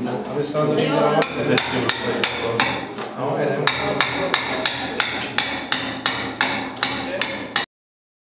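Hammer striking repeatedly in a steady rhythm, about three blows a second, the sound cutting off abruptly near the end.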